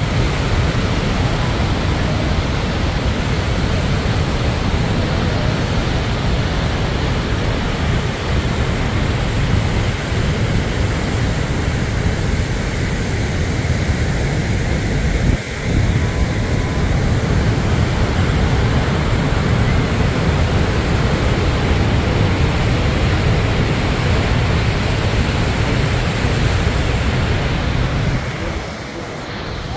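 Niagara Falls' roar of falling water: a loud, steady rush, with wind buffeting the microphone. It eases off a little near the end.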